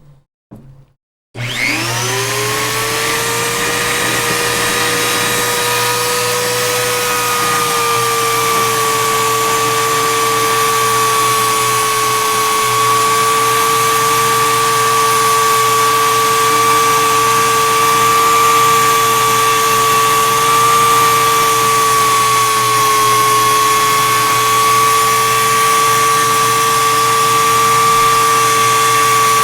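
Small electric power tool used for polishing, switched on about a second in: it spins up with a rising whine, then runs steadily at high speed, its pitch dipping slightly now and then.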